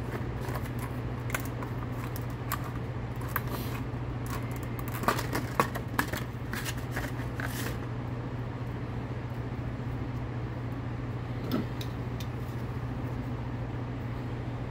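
Plastic blister packaging crinkling and clicking as it is opened, then a bundle of cannon fuse being handled, in scattered clicks and rustles that bunch up about five to seven seconds in, with one more near the end, over a steady low hum.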